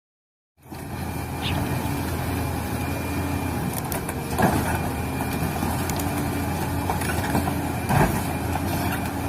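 Radio-controlled model truck and excavator working outdoors: a low hum under a steady rushing noise, with a faint on-and-off motor tone and two small knocks about four and a half and eight seconds in.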